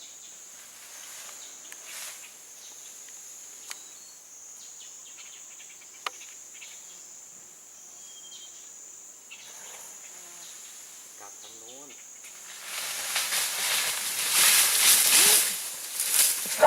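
Insects, cricket-like, giving one steady high-pitched drone with a few faint ticks. About two-thirds of the way through, a louder rushing hiss rises over it.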